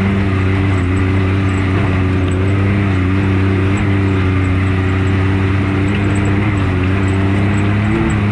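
Can-Am Maverick X3 RC side-by-side's engine running at a steady, nearly constant pitch while driving, over steady road and wind noise.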